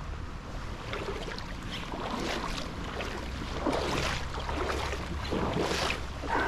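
Creek water sloshing and splashing in irregular bursts, getting louder from about halfway through, over a steady low rumble.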